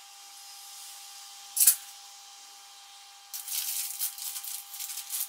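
A single sharp scrape, then from a little past halfway a quick run of uneven scraping strokes, over a faint steady hum.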